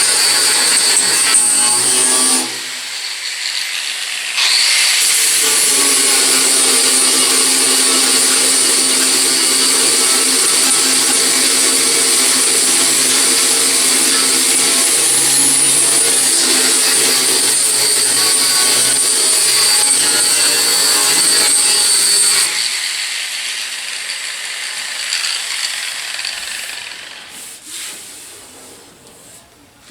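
Power grinder grinding down and blending fresh welds in metal bodywork, running at a steady pitch with a high whine. It eases off briefly a few seconds in, then stops about three-quarters of the way through, leaving quieter sound that trails off.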